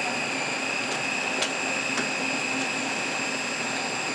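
A small high-speed electric motor running with a steady high-pitched whine.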